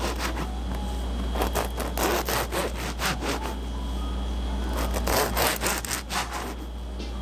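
Serrated bread knife sawing through a crusty baguette in repeated back-and-forth strokes, with a short pause midway between cuts.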